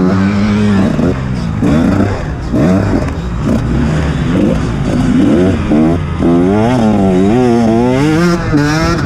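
Dirt bike engine heard from on board, revving up and down repeatedly as it rides the motocross track.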